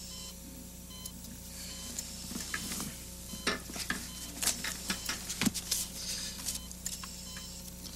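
Rustling and light irregular clicks of a book being picked up and handled, over a steady low hum.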